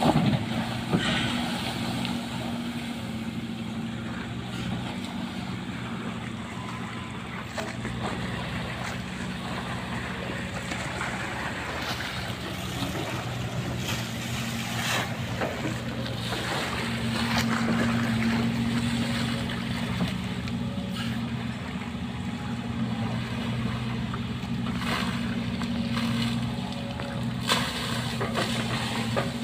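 Sumitomo hydraulic excavator's diesel engine running steadily, swelling louder about halfway through, while its bucket splashes and churns pond water with scattered knocks.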